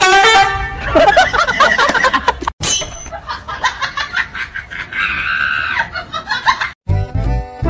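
High-pitched laughing and squealing voices, loudest in the first two seconds. The sound breaks off suddenly about two and a half seconds in, and music with a beat starts near the end.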